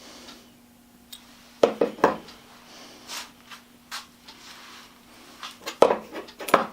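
Tools and metal parts being handled on a workbench: scattered sharp knocks and clinks, with a quick cluster near the end, over a faint steady hum.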